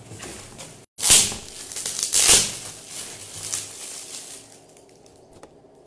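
Cardboard and foil gift wrap rustling and crumpling as a gift box is opened by hand, with two loud bursts of rustling about one and two seconds in, then quieter handling that fades away.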